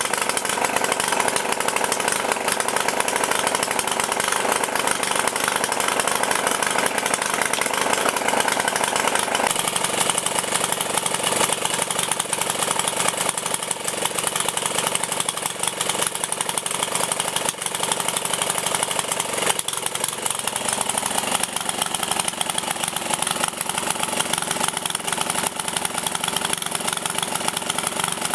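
JAP 2A single-cylinder four-stroke petrol stationary engine running steadily, just after being pull-started with its rope. There is one sharper knock about twenty seconds in.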